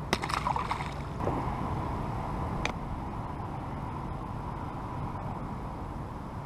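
A released bream splashes into the river at the very start, a brief burst of splashing under a second long. After it comes a steady low background of water and wind around the kayak, with one sharp click near the middle.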